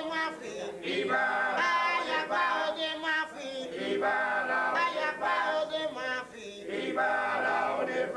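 A group of rumba singers singing a chorus together in phrases a second or two long.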